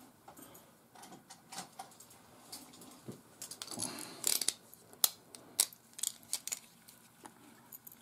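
Clicks and light clatter of small hand tools being handled on the bench as a craft knife is picked up to strip the speaker wires, busiest in the middle, with a few sharp clicks.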